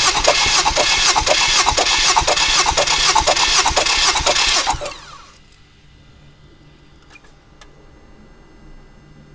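Starter motor cranking a Mazda CX-7's turbocharged four-cylinder engine for a compression test, with the spark plugs out, so the engine turns over in an even, rhythmic pulse without firing. It cranks for about five seconds and then stops, leaving a faint hum.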